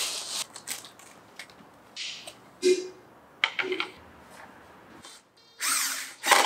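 Flat-pack bamboo bench parts and their cardboard box being handled: scattered knocks and clacks of wood with scrapes and rustles, and a longer, louder rustling scrape near the end.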